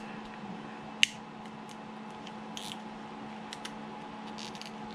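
Cured resin 3D-print supports snapping off under gloved fingers: one sharp snap about a second in, then a few faint clicks and crackles as the part is twisted, over a faint steady hum.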